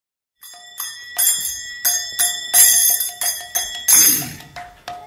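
Small brass hand cymbals (kartals) struck in a steady kirtan rhythm, about three strokes a second, each stroke ringing on. They start half a second in, after a moment of silence, opening the next song.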